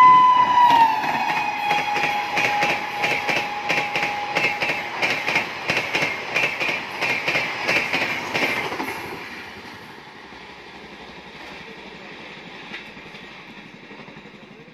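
WAP-7 electric locomotive of an express train passing at speed with its horn sounding; the horn's pitch drops about a second in as the locomotive goes by and stops about five seconds in. The coach wheels clack rapidly over the rail joints, then fade to a low rumble after about nine seconds as the train moves away.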